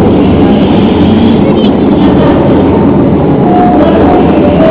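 Steady low rumble of a tour boat under way, its motor running with a constant low hum.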